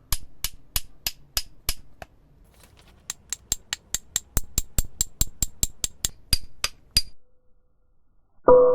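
Light metal-on-metal taps with a short high ring. There is a run of about seven at roughly three a second, then, after a short pause, a faster run of about twenty.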